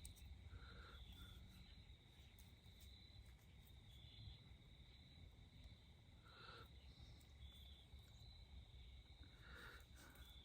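Near silence, with a faint steady high-pitched chirring of crickets or other insects in the background.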